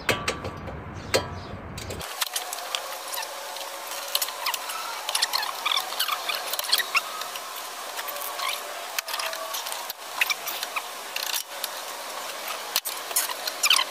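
Hand-tool work on a front wheel hub's bolts: metal clicks and knocks of wrenches on the hub and knuckle. About two seconds in the sound turns thin and high, with many rapid clicks and short squeaks.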